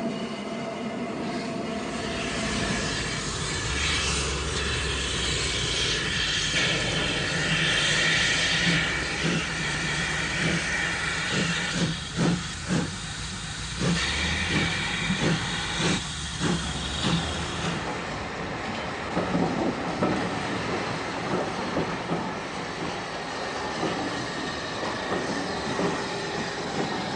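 Caledonian Railway No. 123, a 4-2-2 single-driver steam locomotive, running with its train: a steady hiss of steam over a low rumble, with a run of sharp, regular beats in the middle.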